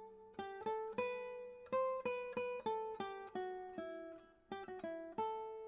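Background music: a melody of single plucked notes on a guitar-like string instrument, each note starting sharply and fading quickly, about three notes a second.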